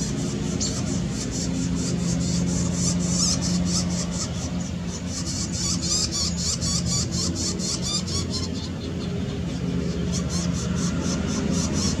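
Northern flicker nestlings begging during feeding: a rapid, continuous run of high-pitched calls that thins out briefly a little after the middle. A steady low engine drone runs underneath.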